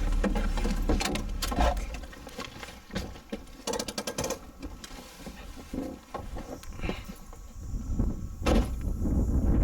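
A vehicle driving on a rough off-road track: a low rumble with loose rattles and knocks, quieter for a few seconds in the middle before the rumble builds again near the end.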